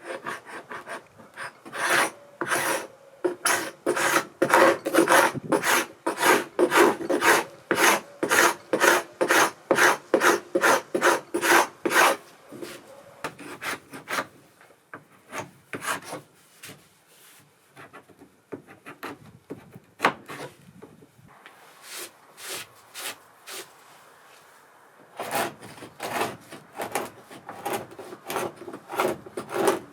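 A hand tool scraping or rubbing on old wood in rhythmic back-and-forth strokes, about two a second. The strokes thin out and grow fainter through the middle, then pick up again near the end.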